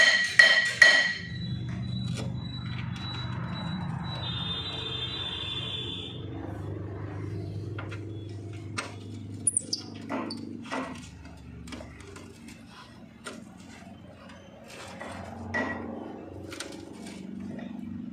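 Hammer blows on steel, ringing, the last couple within the first second. Then scattered light clinks and taps of metal parts, a nut and washers being handled and fitted onto a bolt, over a low steady hum.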